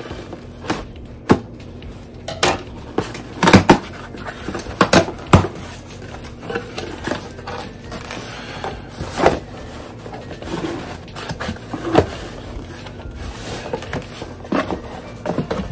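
Irregular clicks, knocks and rustling from a box being handled and unpacked by hand on a desk, with a few louder knocks about four and five seconds in.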